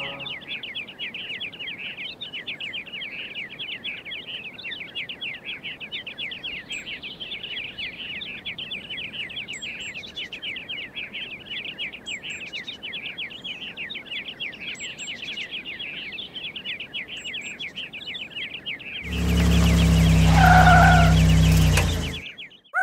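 Forest ambience sound effect of dense, rapid bird chirping. About nineteen seconds in, a much louder sound with a low hum takes over for about three seconds, then cuts off suddenly.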